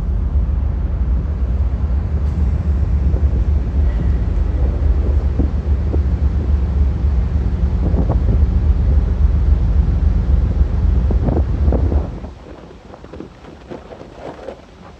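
Low, steady rumble of a ferry's engines with wind buffeting the microphone, dropping away suddenly about twelve seconds in to a quieter wash of noise.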